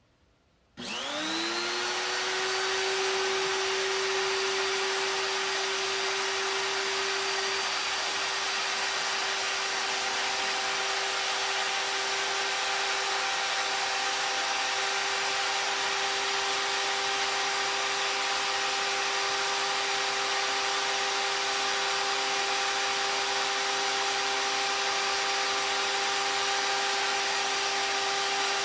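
Die grinder fitted with a small four-flute end mill starts up about a second in, its pitch rising as it spins up, then runs steadily at full speed: a high whine with several steady tones over a strong high hiss.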